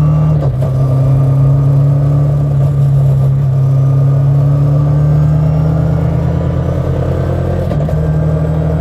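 Millington Diamond 2.7 four-cylinder twin-cam engine of an MST Mk2 restomod pulling steadily on the road, heard from inside the cabin. Its note breaks briefly about half a second in and again near the end, over a faint whine from the straight-cut sequential gearbox.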